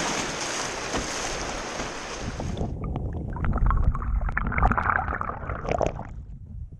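Canoe running shallow rapids: rushing water and wind, with the hull thumping the rocky bottom. A little under three seconds in, the sound changes abruptly to a lower rumble with scattered knocks and clatters.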